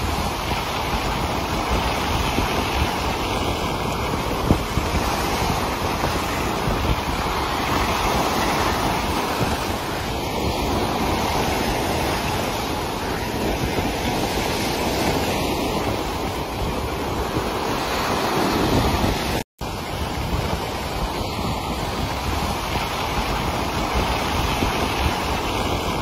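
Sea waves surging and foaming in a steady, continuous rush of surf, with wind on the microphone. The sound cuts out for an instant about three-quarters of the way through.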